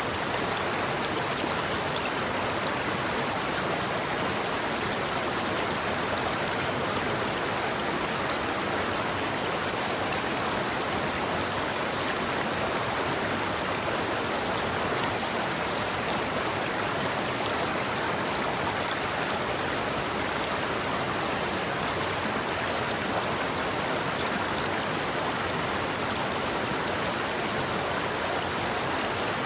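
River water rushing steadily over rocks: an even, unbroken flow.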